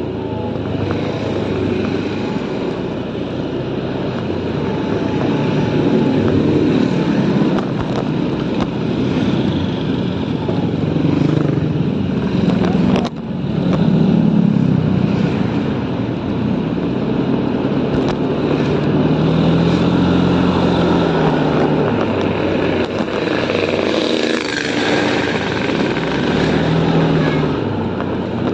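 Motorcycle engine running on the move, its pitch rising and falling with the throttle, over a steady rush of wind noise.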